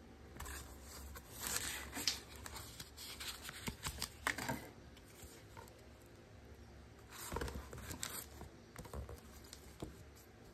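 Faint rustling and scraping of a paperback book in a plastic book jacket being handled and turned over by hand, in several short bursts.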